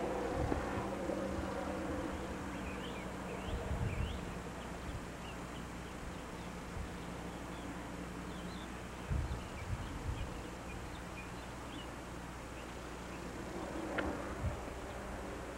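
Outdoor ambience with a steady low hum and faint, short, high chirps scattered through the first two-thirds. A few soft low bumps come around a quarter of the way in, past the middle and near the end.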